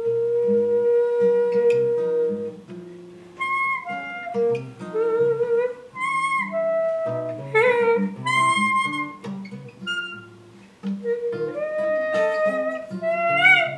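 Freely improvised duet of acoustic guitar and saxophone. The saxophone holds a long steady tone, then plays short notes that bend and waver in pitch, over scattered plucked guitar notes.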